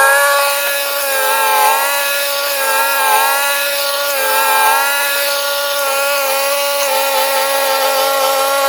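Ariens 624E two-stage snowblower running steadily at working speed, a loud, even engine note with a slight wavering whine.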